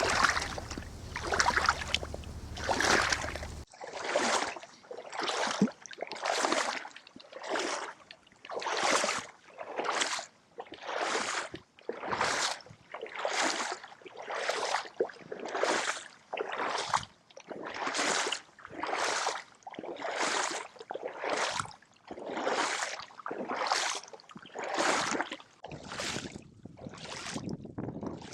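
Rhythmic swishing surges of water, about one a second, each swelling and fading. A low rumble under the first few seconds stops abruptly.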